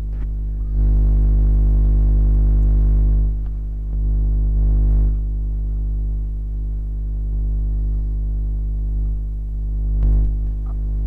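Steady electrical hum with a stack of even overtones, swelling louder for a couple of seconds about a second in and again briefly around four to five seconds in.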